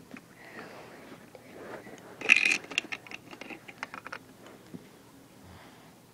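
Plastic Lego pieces being handled: a run of small clicks and rattles, with a louder clatter about two seconds in, dying away after about four seconds.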